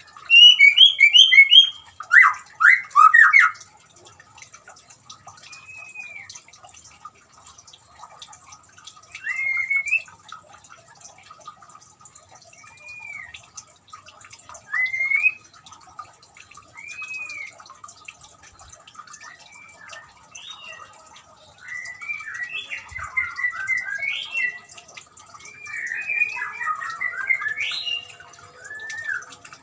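White-rumped shama singing: a burst of loud, rapid notes in the first few seconds, then single arched whistles every couple of seconds, building into longer, varied song phrases near the end, over faint trickling water.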